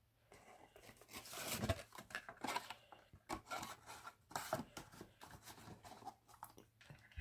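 Card and paper rustling and scraping in irregular bursts as the pieces are handled, with a few light clicks.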